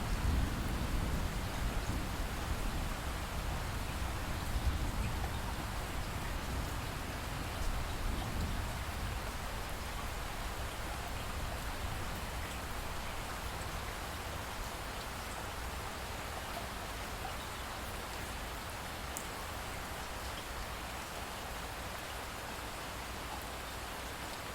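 Steady rain falling, an even hiss of drops. A low rumble of thunder dies away over the first several seconds.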